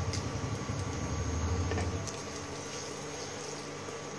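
Glass-top induction cooktop humming steadily under a pan, with a deeper low rumble that stops about two seconds in.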